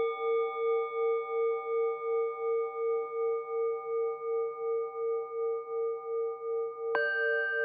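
Takaoka bronze orin bowl bells ringing in a slow piece of music: one bell, struck just before, rings on with a steady wavering pulse of about three or four beats a second, and a second, higher bell is struck near the end.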